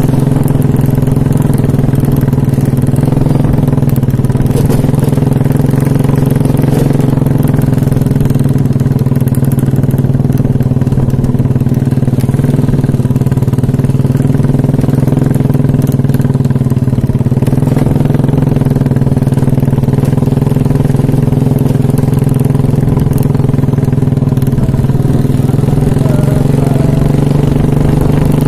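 An engine running steadily at an even speed, without breaks.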